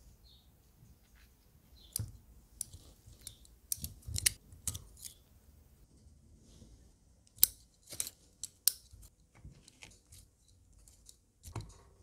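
Stainless-steel kitchen tongs clicking open and shut as they grip cauliflower florets, in sharp separate clicks that come in two bunches and once more near the end.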